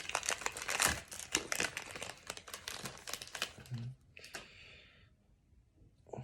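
Plastic wrapper of a trading-card pack crinkling and tearing as it is opened: dense crackling for about four seconds, then one short crackle.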